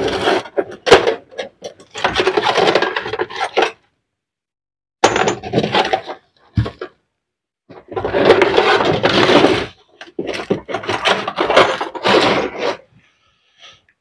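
Metal parts and hand tools clattering and scraping against the opened housing of a 5 kg demolition breaker as it is worked on by hand: four or five rattling, scraping spells of a second or two each, with short pauses and a few sharp clicks between them.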